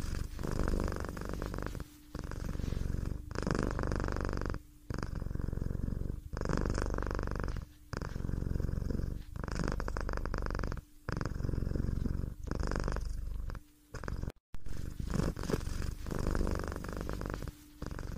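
Domestic cat purring close up, in a steady rhythm that breaks off briefly every second or two as it breathes in and out.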